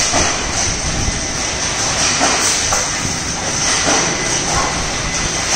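Steady mechanical din of sheet-metal stamping machinery such as power presses running in the shed, with a few faint knocks through it.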